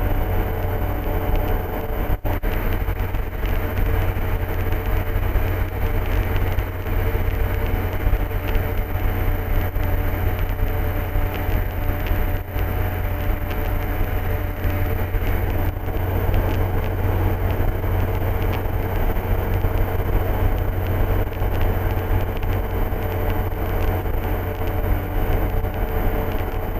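Steady drone of a light aircraft's engine and propeller heard from inside the cockpit, with a deep low rumble and a constant hum over it, holding the same power throughout.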